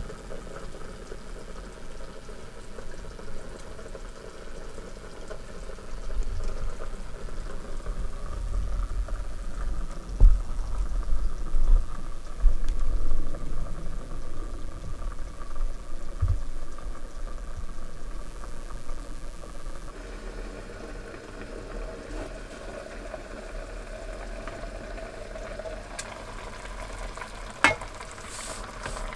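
Food bubbling and simmering in a pan on a portable gas cassette stove, over a steady hiss. Several dull low thuds come in the first half, and a sharp clack near the end as the metal lid is lifted off the steaming pan.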